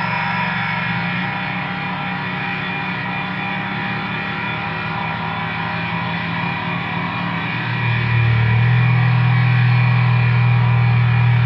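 Harsh, distorted droning noise-music: a dense stack of held tones with a guitar-like, effects-laden distortion, steady and loud. About eight seconds in it gets louder as a deep low drone comes in underneath.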